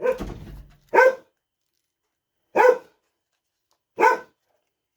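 A dog barking single barks, three of them spaced about a second and a half apart, each short. There is a brief rustling clatter at the very start.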